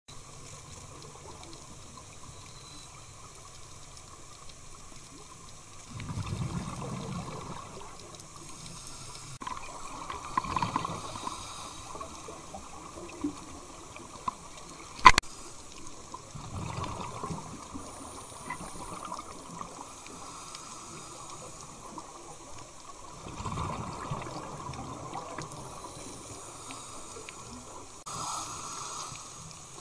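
Underwater sound of a scuba diver breathing through a regulator: bursts of exhaled bubbles every several seconds over a faint steady hiss, with one sharp click about halfway through.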